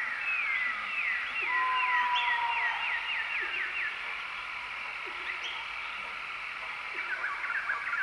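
Nature ambience of chirping animal calls: a run of quick descending chirps, about four a second, around two seconds in, then a busier run of short chirps near the end, over a steady hiss.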